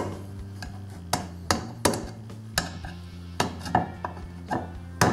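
A hammer tapping a screwdriver against the cast-aluminium timing cover of a 2.2L engine at its front crankshaft seal bore: about ten sharp taps at uneven intervals, some with a short ring.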